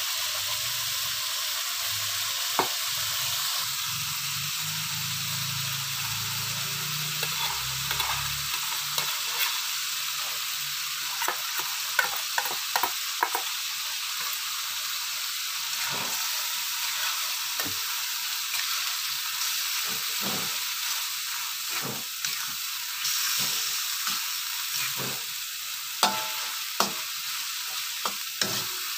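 Oncom and chilli sauce sizzling steadily in a metal wok, with metal utensils scraping and knocking against the pan as the mixture is stirred; the knocks come more often from about ten seconds in.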